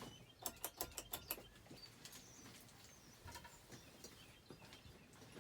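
Hunter Original ceiling fan's oil-bath motor running at medium speed, nearly silent with barely any hum. A quick run of about six light clicks comes about half a second in, and faint bird chirps sound in the background.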